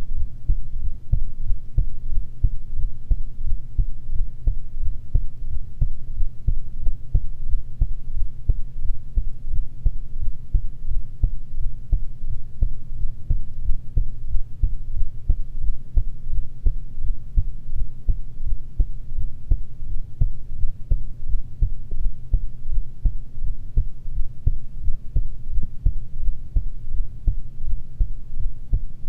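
A person's heartbeat recorded up close: a steady, regular run of low beats over a faint steady low hum.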